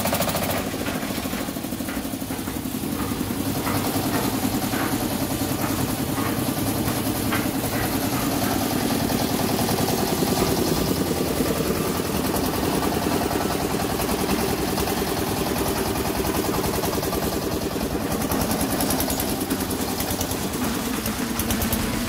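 Esquire concrete mixer's small engine running steadily.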